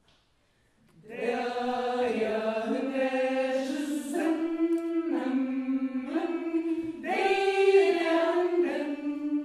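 Women's a cappella choir singing sustained chords that move in steps, coming in after about a second of silence and ending on a long held note.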